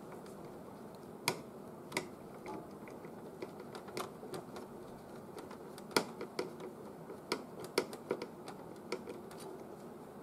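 Irregular light clicks and taps of the plastic parts of an Epson L3110 inkjet printer as they are handled during reassembly, with a few sharper clicks among them.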